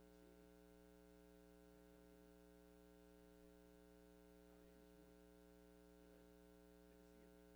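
Near silence: a faint, steady hum.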